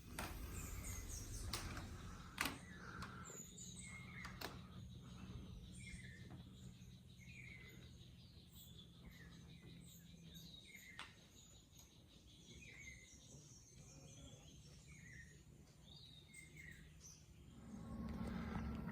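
Faint outdoor rainforest ambience at dusk: a bird calls over and over with short falling chirps, about one a second, among other higher chirps and a few clicks, over a low steady hum.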